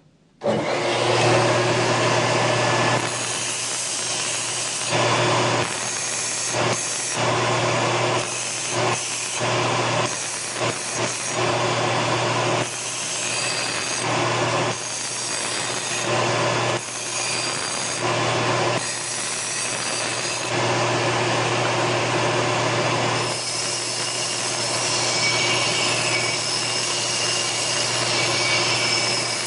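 Large belt sander starting up about half a second in and running steadily, with an aluminum part held against the moving abrasive belt to deburr its edges; the grinding swells and drops as the part is pressed on and lifted off.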